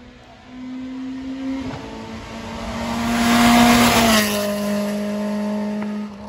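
Rally car coming up the road at speed and passing close by about four seconds in. Its engine note drops in pitch as it goes past, then runs on steadily as it heads away.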